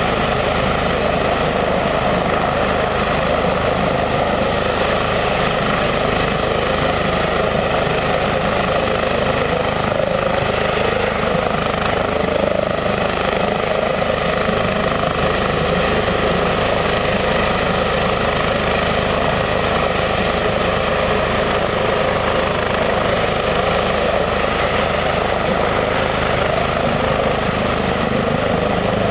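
Airbus H145 twin-turbine helicopter hovering: a steady, loud rotor and engine noise with a constant whine running through it, unchanging in pitch and level.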